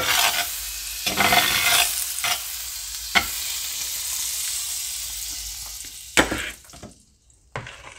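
Butter sizzling in a hot cast iron skillet as a spatula spreads it, with a few sharp scrapes and taps of the spatula on the pan. The sizzle fades near the end.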